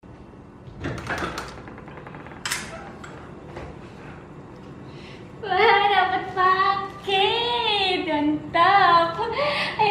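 A door latch clicks and the door opens, with a few short knocks and rustles. About halfway through, a woman starts singing loudly in a high voice, with long held notes that bend up and down; her singing is the loudest sound.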